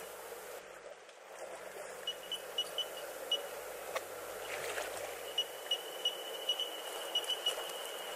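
High electronic beeps at one steady pitch over a steady background hum: a few scattered pips, then from about halfway a quick, even run of pips.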